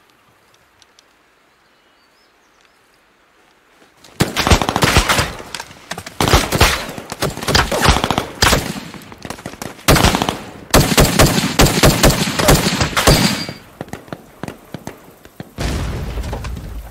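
Heavy gunfire breaks out about four seconds in after a quiet start: rapid bursts of rifle and automatic fire, shot upon shot, for about nine seconds. Near the end comes a duller, deeper noise that fades away.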